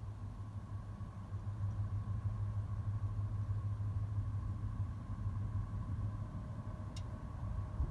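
A low, steady engine rumble, with a faint steady tone above it and a single click about seven seconds in.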